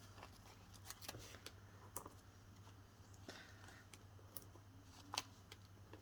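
Faint, scattered clicks and snips of small scissors cutting up a sheet of foam adhesive dimensionals, with a brief soft rustle near the middle, over a low steady hum.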